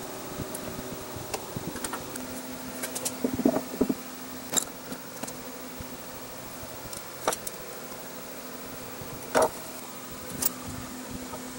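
Steel parts of a small benchtop horizontal milling machine's table and saddle being handled and set in place: scattered metallic clicks and knocks, a cluster about three and a half seconds in and a sharper knock about nine seconds in, over a steady low hum.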